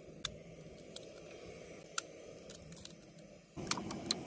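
A few sharp taps of a knife cracking eggs open, then, about three and a half seconds in, a rapid run of clicks as chopsticks beat the eggs against a steel bowl.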